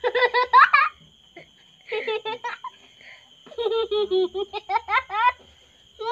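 A young child giggling in three quick bouts of short, high-pitched laughs, with a faint steady high whine underneath.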